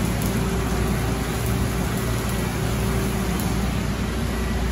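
Car wash tunnel machinery running: a steady hiss of spray and air over a low motor hum, with a faint constant whine.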